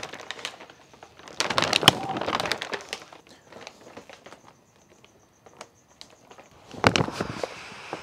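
Bags of Weber charcoal briquettes being hefted and swung: paper rustling and briquettes clattering inside, in two bursts, about a second and a half in and again near seven seconds.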